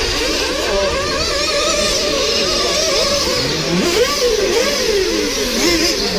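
Several 1/8-scale nitro off-road RC buggy engines racing, revving up and down as they brake and accelerate around the track. Their high whines overlap, each rising and falling in pitch.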